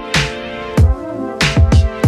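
Electronic background music: deep kick-drum hits that drop in pitch, several in quick succession, over held synth chords, with sliding synth notes around the middle.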